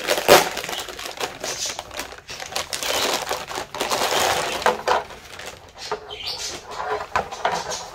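Clear plastic packaging bag crinkling and rustling irregularly while a fabric bottle-holder bag is handled and pulled from it, with scattered light knocks.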